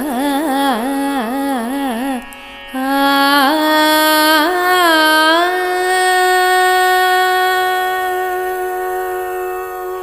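Carnatic music: a melody line with quick oscillating ornaments, a short break about two seconds in, then glides that settle into one long held note that slowly fades, over a steady drone.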